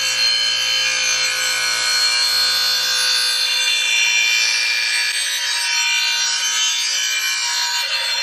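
Steel lawn mower blade being sharpened on the grinding wheel of a Clarke 6-inch bench grinder: steady grinding with high ringing tones over the motor's low hum.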